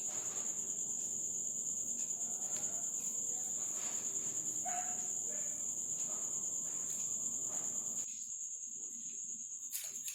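Cricket chirping without a break: a steady high trill with a fast pulse, and two sharp clicks near the end.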